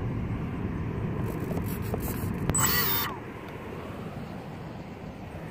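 Outdoor background rumble, uneven and strongest low down, like wind or distant traffic on the microphone. About two and a half seconds in comes a short, loud pitched call or cry that rises and falls, and the rumble eases a little after it.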